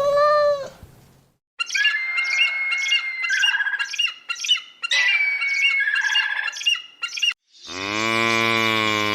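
A cat's meow ends in the first second. After a short gap comes a high warbling call from an animal or bird, with regular clicks at about two a second, played twice. Near the end a cow starts one long, low moo.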